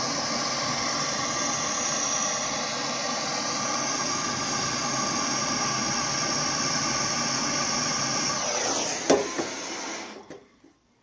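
Wood/pellet stove's fan running steadily with a whirring hum, then winding down in pitch and stopping about nine seconds in, with a sharp click as it stops.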